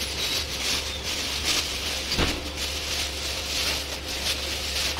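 Packaging being handled: repeated crinkly rustles of plastic and paper, with one short knock about two seconds in, over a steady low electrical hum.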